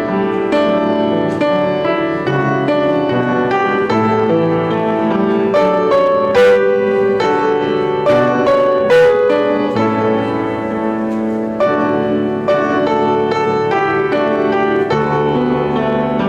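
Piano offertory music: a slow piece of held chords and melody notes.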